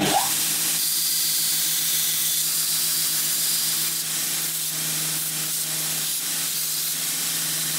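Electric belt grinder running with a metal bracket pressed against its abrasive belt: a steady, loud grinding hiss over the motor's even hum.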